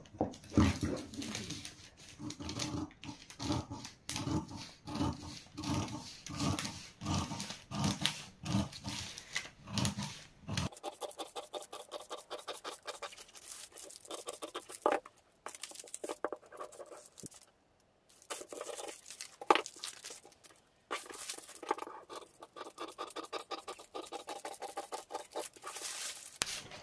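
Large sewing scissors cutting through a paper pattern sheet, in steady snips about two a second. After about ten seconds the snipping becomes quieter and more broken, with paper rustling as the sheet is handled.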